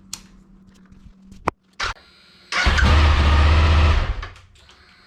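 A few sharp switch clicks, then the 2007 Suzuki V-Strom DL1000's V-twin engine starts about two and a half seconds in. It runs for about a second and a half and then dies away.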